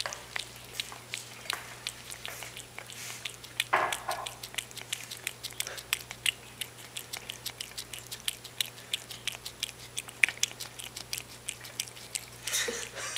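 A cat licking and nibbling at an ice cream cone right at the microphone: a quick, irregular run of wet clicks and smacks from its tongue and mouth.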